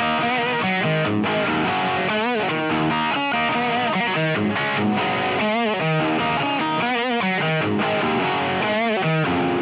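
Background rock music led by a distorted electric guitar playing a melody with wavering, bent notes.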